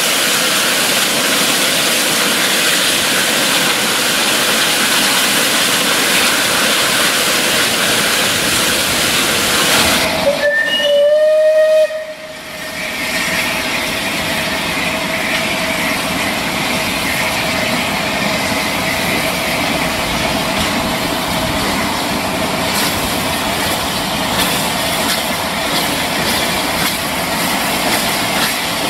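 Steam locomotive letting off steam with a loud, steady hiss, then sounding one short whistle blast about ten seconds in that slides up in pitch as it opens. The steam hiss carries on afterwards with a faint held tone.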